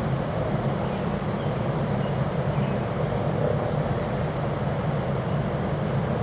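Strong wind buffeting the microphone, a steady low rumbling roar, with a faint rapid high trill in the first two seconds.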